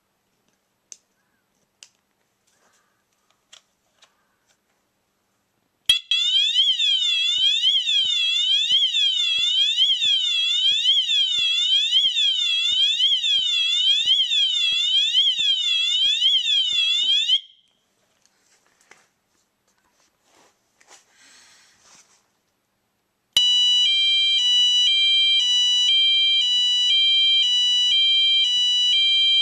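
Wheelock MT multitone fire alarm horn testing its tones. After a few light clicks, it sounds a loud tone that sweeps down and up a little over once a second for about eleven seconds and then stops. A few seconds later a different tone starts, stepping back and forth between a high and a lower pitch.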